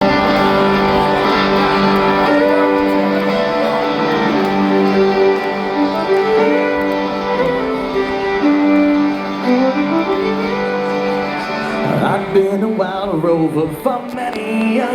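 Live band playing a folk tune: strummed guitar under a held, stepping melody line. Singing comes in near the end.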